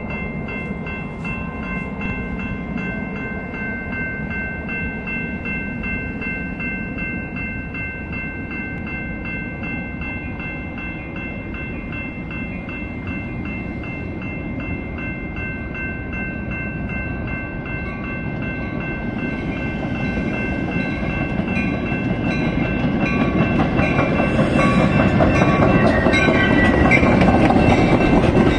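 Grade-crossing warning bell ringing steadily in a fast, even repeat, while a Metra commuter train's rumble builds over the last ten seconds as the bilevel passenger cars roll past.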